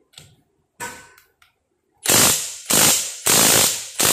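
Milwaukee mid-torque cordless impact wrench hammering on a car's wheel nut in short bursts: after a few faint clicks, three loud bursts of about half a second each begin about two seconds in, with a fourth starting at the end, as repeated trigger presses work the nut loose.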